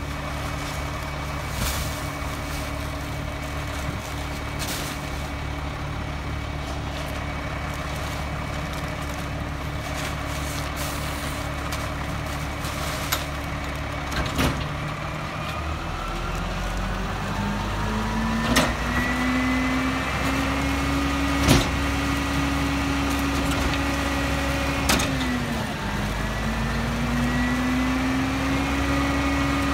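Diesel engine of an EZ Pack Goliath rear-loader garbage truck idling, then speeding up about halfway through and holding a higher steady pitch, with a brief dip near the end, as the hydraulic packer is run. A few sharp knocks as yard-waste bags are thrown into the hopper.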